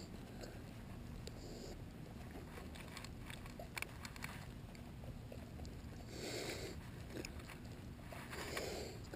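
Faint handling noise: scattered small clicks and rustles as a hand works at the mouth of a grass carp lying in a landing net on grass. Two short puffs of breath come about six seconds in and near the end.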